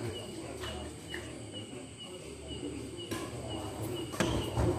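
Badminton rackets smacking the shuttlecock during a doubles rally: a sharp hit about three seconds in and another louder cluster near the end. A high chirp repeats steadily in the background over a low hum.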